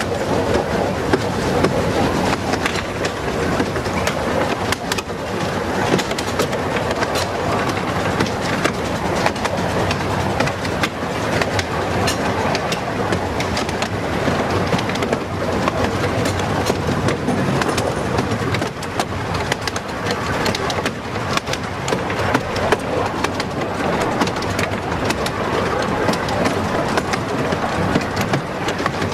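Miniature steam railway train running along its track, heard from the carriage right behind the locomotive: a steady rumble of wheels on rail with many small irregular clicks.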